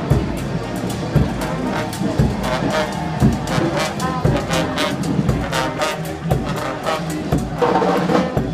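Brass band playing, horns over a steady drum beat.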